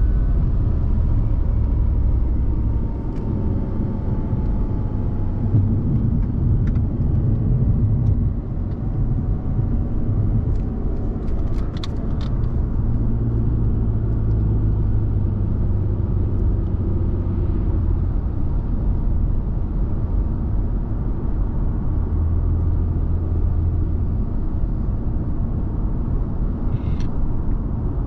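Cabin noise of a 2005 Audi A6 2.4 V6 driving at road speed: a steady low engine drone mixed with tyre and road rumble. A few short sharp clicks come about halfway through, and one more near the end.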